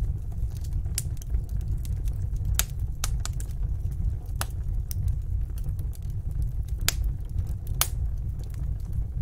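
Wood fire burning in a fireplace: a steady low rumble with sharp, irregular crackles and pops, about one a second, the loudest pops coming near the end.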